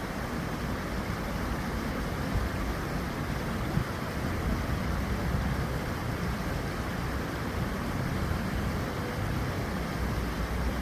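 Cheonggyecheon stream's water flowing steadily, an even rushing noise with no distinct splashes or pauses.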